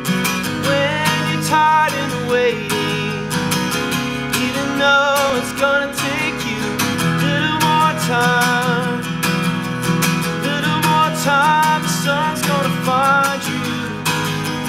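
Live acoustic guitar strummed in a steady rhythm, with a singer's voice over it.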